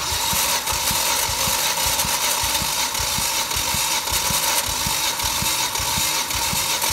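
Volvo B5244S 2.4 inline-five engine cranked over on its starter motor during a compression test of the third cylinder. It is a steady whirring with a rapid, even pulse, starting abruptly. This cylinder reads about 10 kg/cm² on the gauge.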